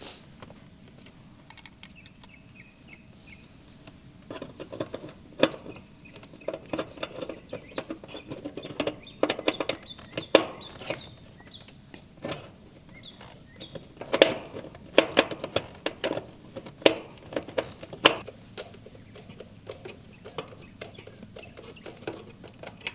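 Screwdriver and metal parts clicking, tapping and scraping as an air-conditioner contactor is unscrewed and its wire terminals pulled off. The clicks come thick from about four seconds in and thin out after about eighteen seconds.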